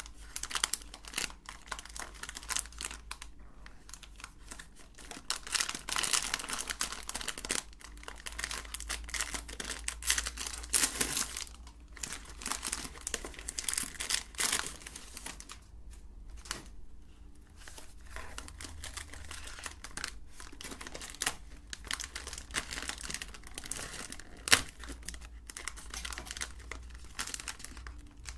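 Thin plastic wrapper of a Nutella B-ready twin pack crinkling and tearing as it is opened by hand and the two individually wrapped bars are pulled out. It comes in irregular bursts of crackle, with one sharp click late on.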